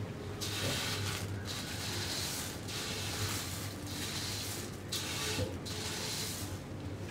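Dry puffed rice rustling and crackling against a steel plate as a hand scoops it up, in repeated scoops about a second apart.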